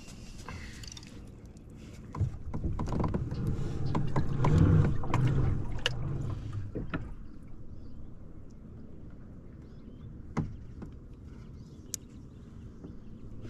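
Bumps, knocks and rubbing against a plastic kayak hull as the angler shifts in his seat, loudest from about two to seven seconds in; then a few isolated clicks over a quieter background.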